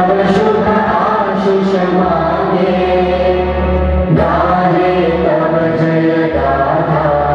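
Music with choir-like chanting voices holding long notes, with a deep bass note that comes in about two seconds in.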